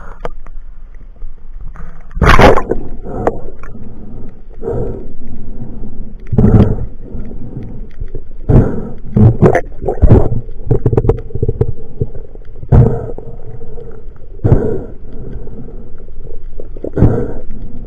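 Muffled water sloshing and gurgling against a waterproof action-camera housing in the sea, in irregular loud surges every second or two over a steady low rumble.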